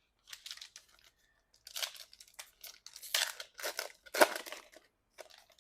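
A baseball card pack's wrapper tearing open and crinkling, in a series of short, irregular rustles.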